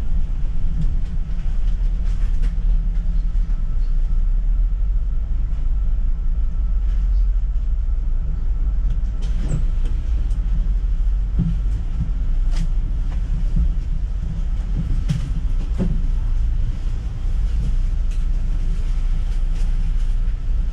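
City bus in motion, heard from the driver's cab: a steady low engine and road rumble, with scattered rattles and knocks from the body.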